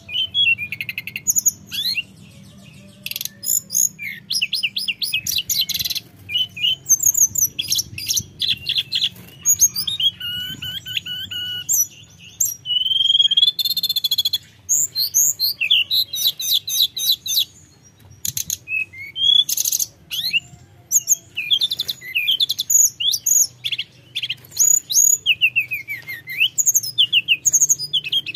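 Male hill blue flycatcher singing in full voice: rapid, high, varied warbling phrases broken by short pauses.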